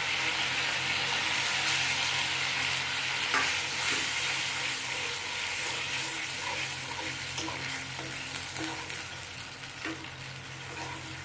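Wet ground ghotkol paste with spiced masala sizzling in a black iron karahi over a gas flame, stirred with a metal spoon that clicks against the pan a few times; the paste is cooking down with the water that has just been added. The sizzle eases slowly toward the end.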